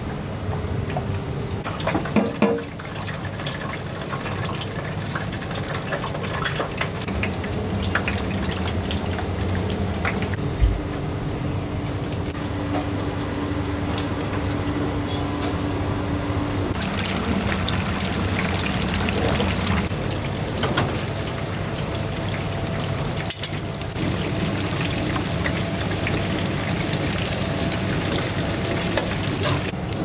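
Water running and pouring in a soba shop kitchen, with scattered knocks and clicks throughout.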